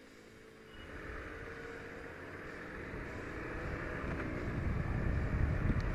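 Motorcycle engine pulling away and accelerating, its pitch rising, with wind noise on the helmet microphone building as speed picks up.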